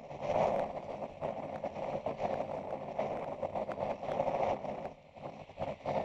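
50-ton Miller Industries Vulcan 950 rotator tow truck running under load, its engine and hydraulics working the boom as it booms in over a rolled semi-trailer.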